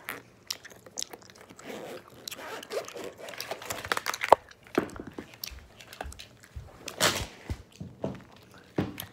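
Irregular rustling, crinkling and sharp clicks from handling a Nintendo Switch and the bag it came out of.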